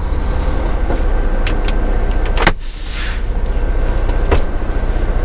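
Semi-truck's diesel engine running, heard from inside the cab, with two sharp clicks about two seconds apart in the second half.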